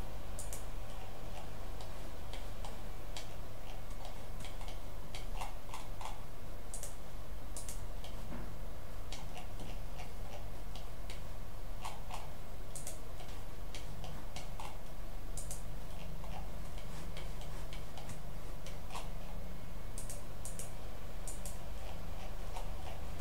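Computer mouse clicking now and then, in short irregular clicks over a steady low hum.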